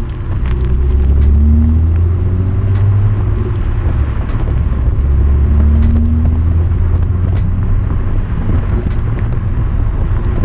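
BMW 335i's twin-turbo N54 straight-six running through an exhaust with the electric cutouts open while driving, making a loud, deep drone. The engine note swells and rises briefly twice, at about one and a half seconds and about six seconds in.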